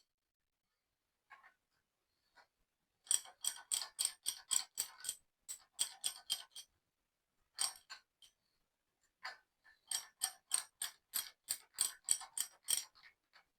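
Hand ratchet wrench clicking as a bolt is turned, in several short runs of sharp, even clicks at about four a second, with brief pauses between the runs.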